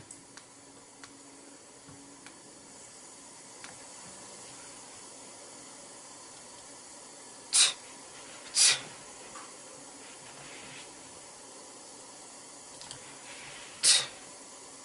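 Steady low hiss of recording noise with a few faint clicks, broken by three short, loud hissing bursts: two about a second apart near the middle and one near the end.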